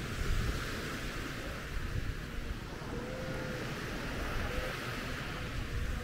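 Atlantic surf washing onto the shore, with gusty wind rumbling on the microphone.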